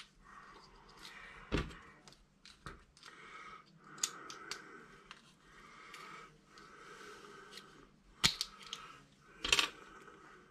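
Small plastic clicks and taps of hands handling a Kyosho Mini-Z RWD car's chassis while AAA batteries are fitted into it. A few sharper clicks stand out, the loudest near the end.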